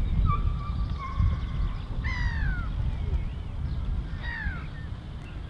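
Harsh bird calls, two falling cries about two seconds in and again a couple of seconds later, over a steady low rumble.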